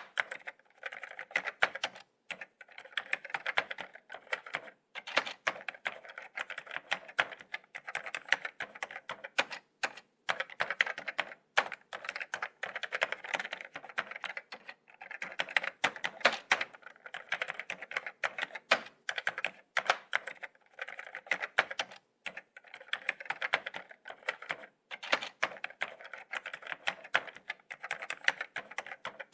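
Laptop keyboard being typed on: quick runs of light key clicks, each run lasting a second or two, with short pauses between.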